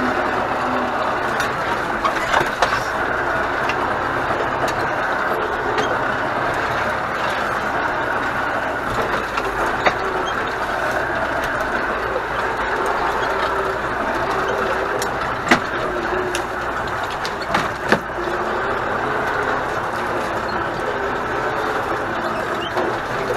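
Pronar MTZ 82A tractor's diesel engine running steadily while driving, heard from inside the cab, with cab and loader rattle and a few short sharp knocks.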